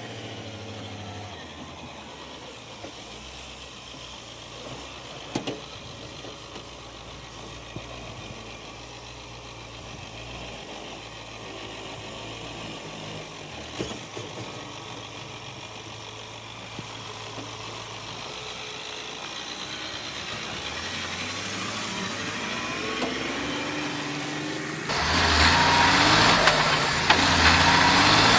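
Heavy logging truck's diesel engine running with a steady low hum. It grows gradually louder over the second half, then becomes much louder and fuller about three seconds before the end.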